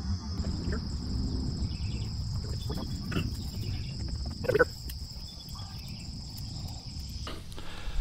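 Steady high-pitched insect drone over a low outdoor rumble, with a short, louder close knock or rustle about four and a half seconds in. The insect sound cuts off abruptly near the end.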